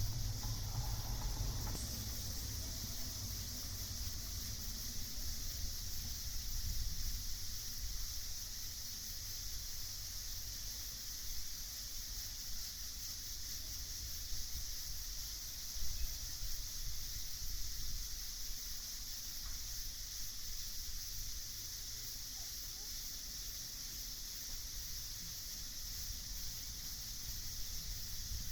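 Night insect chorus, a steady high-pitched shrilling that runs on without a break, over a low rumble.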